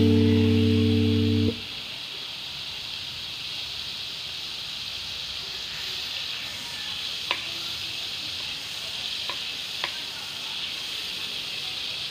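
Margarine melting and sizzling in a hot metal pan, a steady hiss, with a few light clicks of a utensil against the pan. A held music chord cuts off about a second and a half in.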